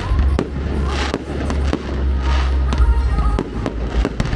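Fireworks display: a quick run of sharp bangs from bursting shells over deep, rumbling booms.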